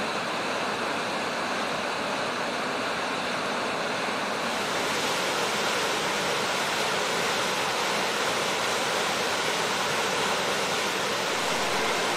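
Water rushing out through a river sluice, a steady churning white-water rush where the drop in height makes the outflow turbulent. The rush turns brighter and hissier about four and a half seconds in.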